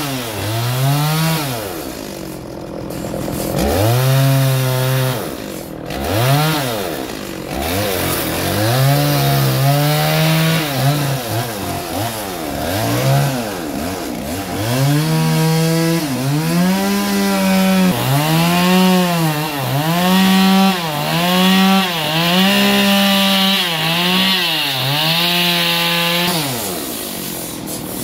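Chainsaw revved up and back down over and over, in bursts of one to two seconds. From about two-thirds of the way in it is also cutting into wood, adding a hiss over the engine until shortly before the end.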